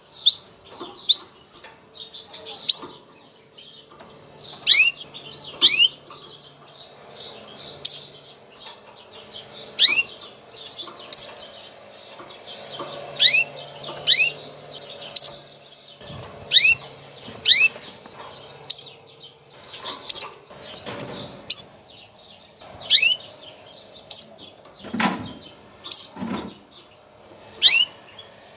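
Female canary calling: short high chirps repeated roughly once a second, many with a quick upward sweep. This is the canary hen's mating call, which signals breeding readiness to males. Two dull low knocks come near the end.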